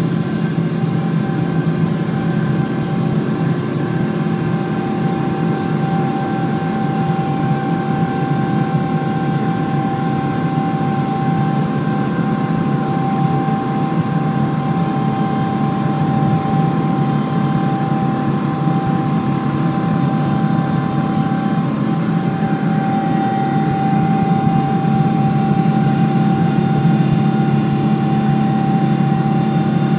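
Boeing 777-200ER's GE90 turbofan engines at takeoff thrust, heard inside the cabin: a loud, steady rumble with a constant whine over it, through the takeoff roll and liftoff. The sound grows slightly louder toward the end.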